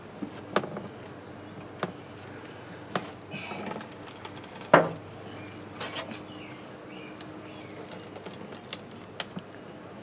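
Irregular knocks, clicks and taps of a cut wooden board being pried loose with a pry bar, with a cluster of them in the middle and the loudest knock just before the halfway point. A faint steady hum runs underneath.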